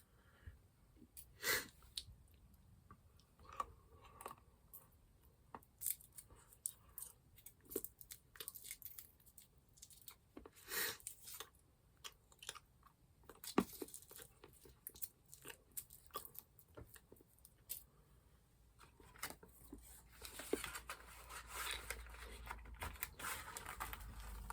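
Close-up eating sounds: intermittent chewing and crunching of snack treats, with denser rustling and crackling of packaging in the last few seconds.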